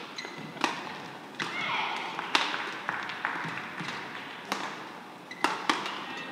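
Badminton rally: a string of sharp cracks as rackets strike the shuttlecock, roughly a second apart, with shoe squeaks and footfalls on the court.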